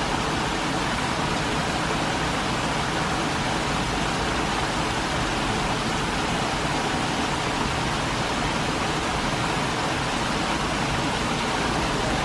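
A small waterfall spilling over stepped rock ledges into a rocky creek: a steady, unbroken rush of falling water.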